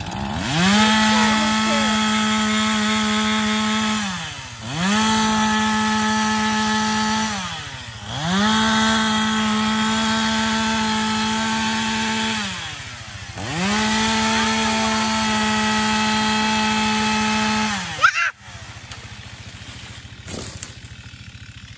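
Gas-powered chainsaw cutting a small tree, run up to full throttle four times for three to four seconds each, its pitch sliding back down toward idle between pulls. A sharp crack comes near the end, after which the saw idles more quietly.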